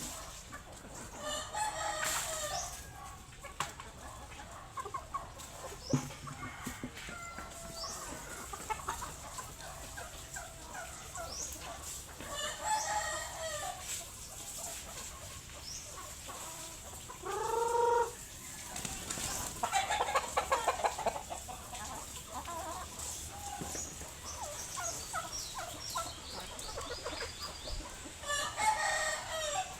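Chickens clucking and calling repeatedly, with a louder single call a little past halfway.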